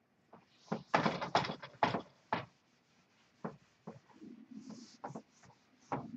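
Whiteboard being wiped clean by hand: a quick run of rubbing strokes in the first couple of seconds, then fainter, scattered rubs and light taps.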